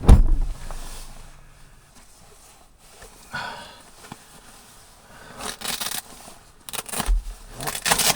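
A sudden heavy thump, then several bursts of rustling and scraping, like someone moving about and handling gear.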